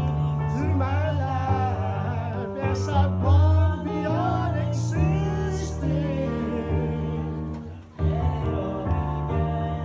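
A man sings a song into a microphone, amplified over instrumental backing music. The sound dips briefly about eight seconds in.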